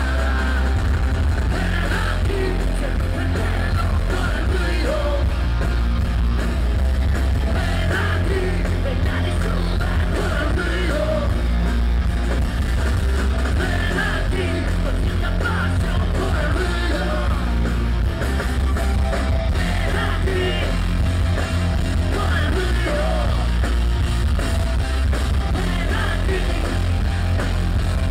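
Live rock band playing loud through a PA, with electric guitars, bass and drums and a singer's voice over them. The bass and kick drum are the strongest part of the sound.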